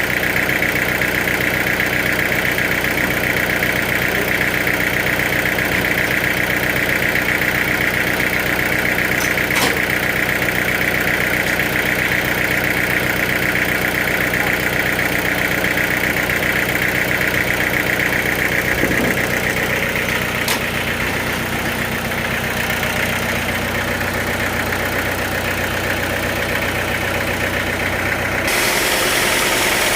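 Sawmill machinery running steadily, a constant machine hum with a steady whine on top; the sound changes abruptly near the end.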